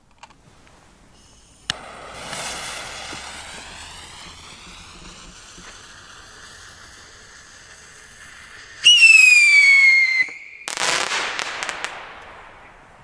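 Sky Scream whistle rockets flying. After a sharp pop, a whistle slides down in pitch for several seconds. About nine seconds in, a loud, piercing whistle falls in pitch and cuts off after about a second. It is followed by a burst of crackling that fades over about two seconds.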